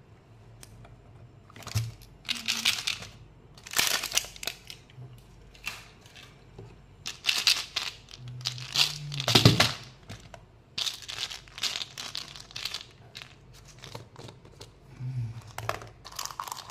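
Plastic candy packaging crinkling and being torn open by hand, in a run of irregular short bursts, loudest a few seconds in and again about halfway through.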